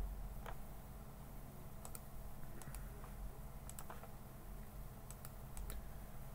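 Faint, scattered clicking of a computer mouse and keyboard: about a dozen short sharp clicks, several in quick pairs, over a low steady hum.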